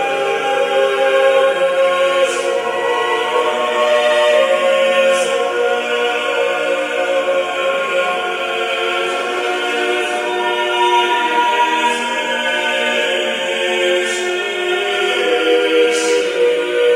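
Choral music: a choir singing slow, sustained chords with long held notes.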